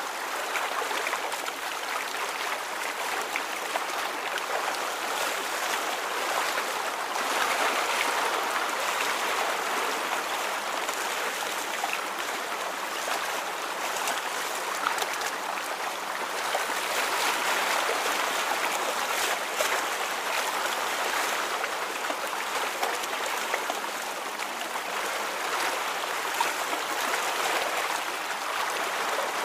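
Flowing water, a steady rushing sound with small splashy peaks and gentle swells in loudness every several seconds.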